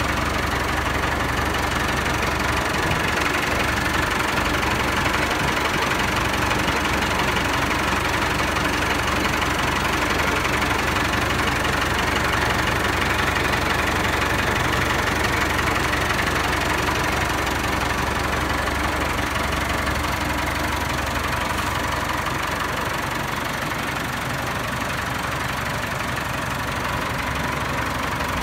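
Tractor engine idling steadily, a constant mechanical drone.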